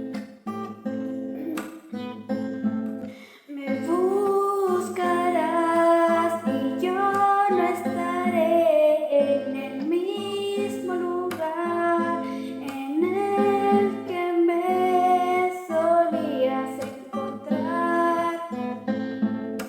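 Acoustic guitar strumming chords, with a woman's voice singing a melody over it from about four seconds in.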